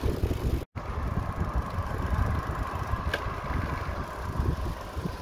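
Wind buffeting the microphone of a phone moving along a street, with road and traffic noise. The sound cuts out completely for a moment under a second in.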